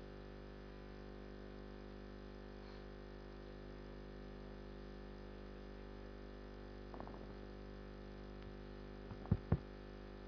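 Steady electrical mains hum through the room's microphone system. Near the end come two sharp thumps a moment apart as a gooseneck table microphone is grabbed and handled.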